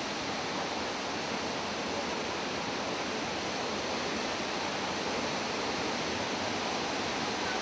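High Force waterfall in flood: a great volume of floodwater plunging over the cliff in a steady, unbroken rush.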